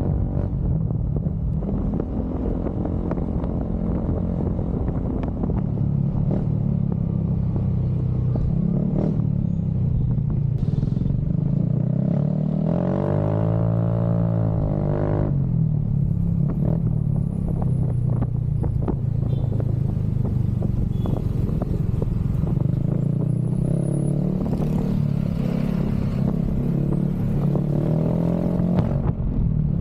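Motorcycle exhaust running steadily. About halfway through, one rev sends the pitch up and back down over about three seconds.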